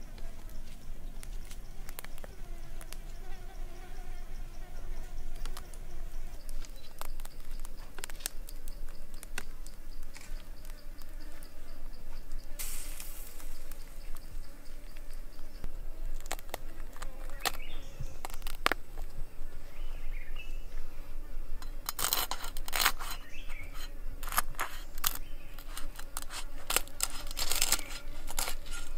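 Scattered clicks and a brief rustle as a roast pig head on a wooden spit is handled. Near the end comes a quick run of crisp crackles as a cleaver cuts into the roasted skin. A faint insect buzz sits under the first part.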